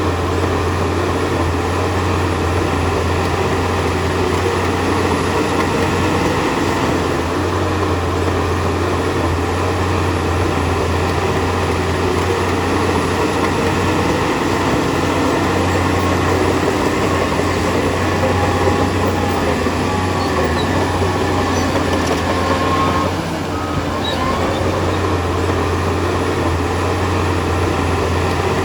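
Heavy earthmoving machinery running steadily: a bulldozer's diesel engine under load, with a constant low drone. It eases off briefly about 23 seconds in, then picks up again.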